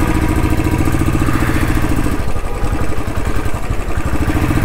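Royal Enfield Bullet's single-cylinder engine idling with an even, rapid thump. The note briefly dips and breaks a little past halfway, then settles back.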